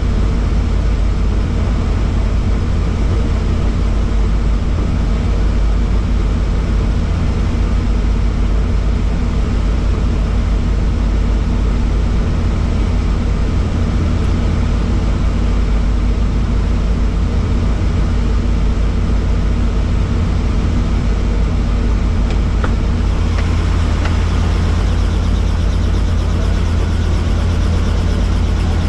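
Helicopter engine and rotor running steadily at ground idle, heard from inside the cockpit as a loud, deep, unbroken drone. It turns hissier near the end.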